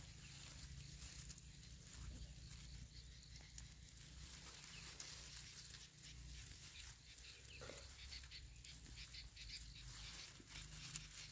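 Near silence: faint outdoor background with a low steady rumble and a few scattered faint ticks.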